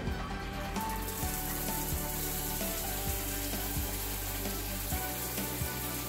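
Water spraying from a Grohe overhead rain shower head: a steady hiss of spray that comes on about a second in, once the mixer valve is opened.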